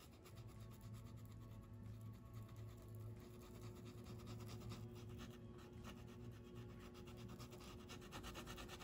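Faint scratching of a paintbrush's bristles stroking acrylic paint onto coarse-woven fabric, over a low steady hum.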